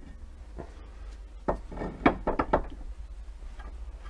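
A few knocks and clunks of metal parts and tools being handled at a bench vise holding a brake caliper, most of them in a quick cluster about two seconds in, over a steady low hum.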